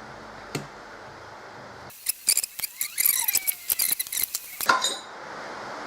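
Small steel engine parts and tools clinking and tapping against one another on a workbench: a single click, then a quick run of sharp metallic clinks and light rattles lasting about three seconds.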